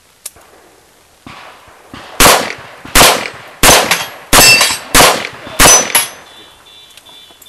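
Smith & Wesson 625 revolver fired six times in quick succession, about 0.7 s apart, emptying the cylinder. A faint metallic ringing lingers after the last shot.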